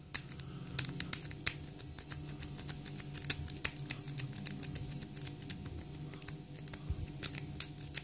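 Lock pick raking the pin stack of a brass padlock under tension-wrench pressure: irregular light metallic clicks and scratches, with a few sharper clicks in the first second or so and again near the end.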